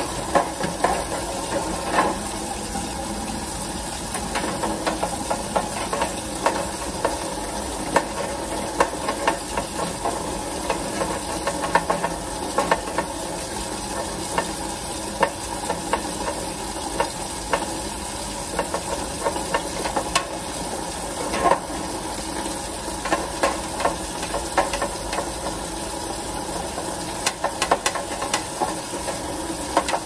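Water from a garden hose running down through a wire bird cage and splashing into its plastic tray, with irregular clicks and rattles of the metal bars as hands scrub them.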